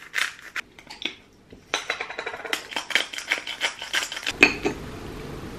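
Hand-twisted salt grinder being turned: a few separate clicks, then from about two seconds in a fast run of gritty clicks, roughly six a second, ending with a louder click.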